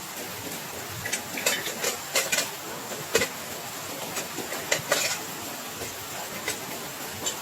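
Steady rain hiss with a scattered run of sharp clinks and knocks, like small metal cookware being handled, most of them between about one and five seconds in.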